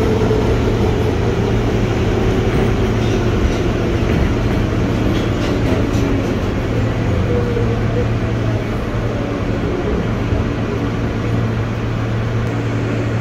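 Inside a moving New York City subway car: steady rumble and wheel-on-rail noise of the train under way, with a constant low hum and a faint whine in the middle.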